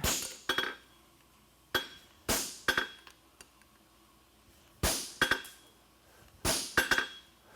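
Hammer blows on hot steel horseshoe bar stock over an anvil as a farrier cuts the bar along a marked line: about a dozen sharp metallic strikes in small groups, each ringing briefly.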